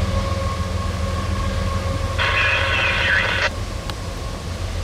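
Norfolk Southern autorack freight train rolling past, a steady low rumble, with a short burst of radio chatter a little over two seconds in.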